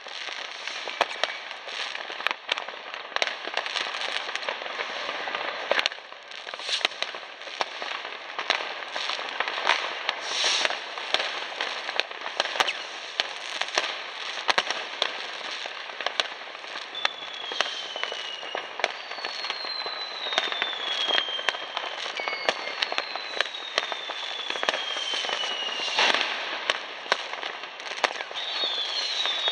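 New Year's fireworks going off all over town: a dense, continuous crackle of firecrackers and rockets with many sharp bangs. In the second half several whistles fall slowly in pitch.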